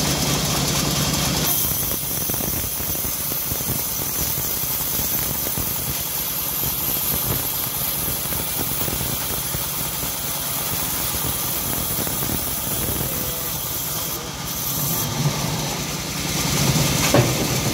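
Homemade band sawmill running steadily, its blade cutting a slab of hard johar wood as the slab is pushed through, with a few short knocks near the end.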